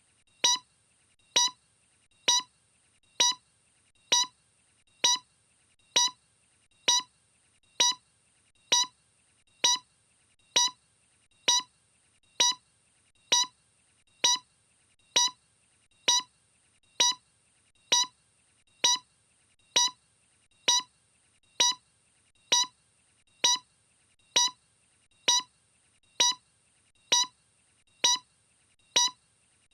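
A short electronic beep repeating evenly, a little more than once a second, like a metronome or timer.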